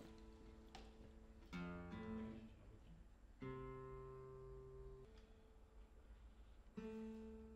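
Faint, slow chords plucked on a nylon-string classical guitar, each left to ring out before the next; about five in all.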